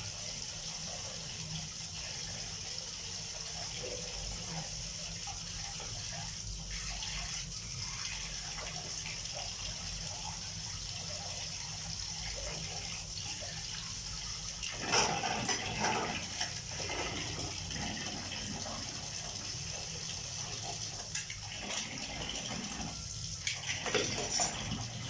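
Water running steadily from a tap and splashing into a plastic basin of water as dishes are washed by hand. Dishes knock and clatter in two bouts, about two-thirds of the way through and again near the end.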